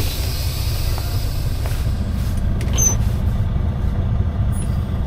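Heavy wrecker's diesel engine running steadily, with a hiss of released air fading away during the first second.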